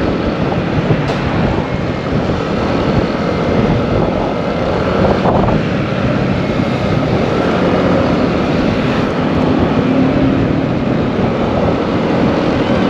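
Motorcycle riding at road speed: steady engine and road and wind noise.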